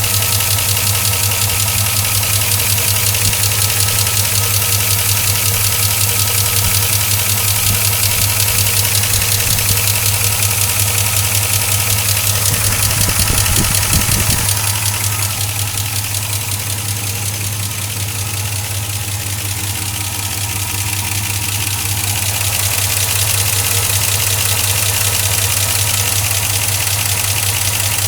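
Chevrolet Silverado's 5.3L V8 idling with a loud, rapid ticking running through it. The owner likens the sound to air escaping, an air leak of some sort up top.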